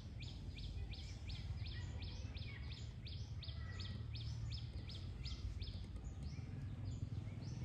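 A bird calling a fast, even series of short high notes, about three a second, over a steady low rumble.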